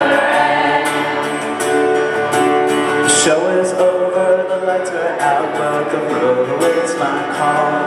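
Live wizard rock music: a strummed acoustic guitar with singing, recorded from among the audience.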